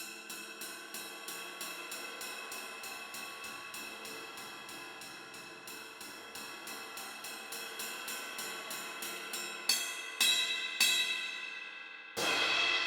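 A 20-inch Zildjian Oriental Crash of Doom, a China-type cymbal, played with steady light strokes about four a second over its ringing wash. About ten seconds in come three harder hits, then one loud crash near the end that rings out.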